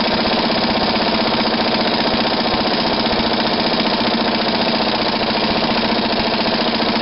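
Air impact wrench hammering continuously on a lug nut that is tightening against a stack of washers, pulling a new extended wheel stud into the hub.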